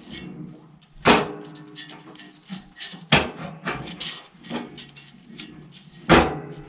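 Snowblower auger being spun by hand, dragging on the floor: three loud metal clanks with a short ring, about one, three and six seconds in, with smaller clicks and scraping between them. The auger turns smoothly, with no sign of worn bearings or a loose pulley.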